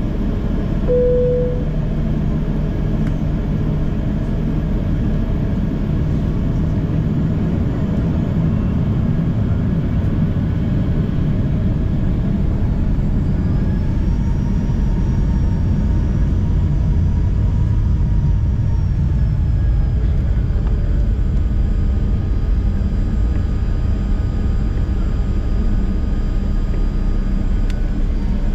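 Boeing 737-800 CFM56 jet engines and airframe heard from inside the forward cabin: a steady, loud rumble. A faint engine whine rises a little in pitch about halfway through and eases back a few seconds later. A brief tone sounds about a second in.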